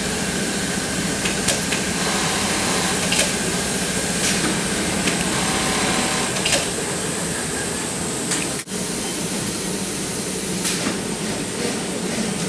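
Steady din of many sewing machines running together on a garment factory floor, with scattered light clicks. The sound breaks off for an instant about two-thirds of the way through.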